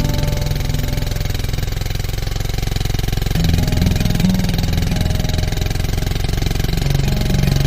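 Motorcycle engine running with a steady pulsing beat; its low pitch shifts a little about three and a half seconds in.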